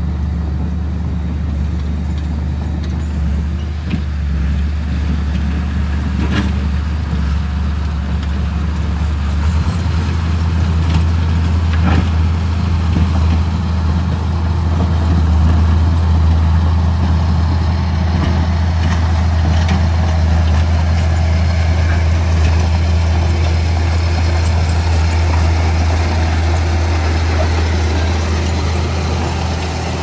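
Heavy diesel engine of earthmoving machinery running steadily, its note stepping up slightly about ten seconds in. A few sharp clanks sound now and then.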